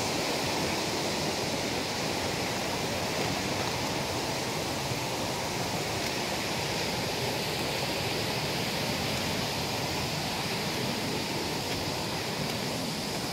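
Waterfall and creek water rushing steadily, an even hiss that does not change.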